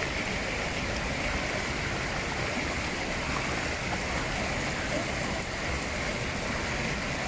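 River water rushing over a low rocky cascade into a pool: a steady, unbroken rush.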